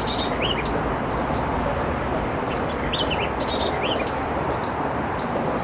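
Small birds chirping in short, quick rising notes, a few just after the start and a longer run of them in the middle, over a steady hum of nearby highway traffic.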